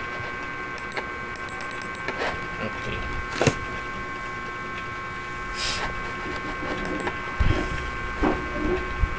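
Scattered clicks of a computer mouse and keys, one louder about three and a half seconds in, over a steady high-pitched hum.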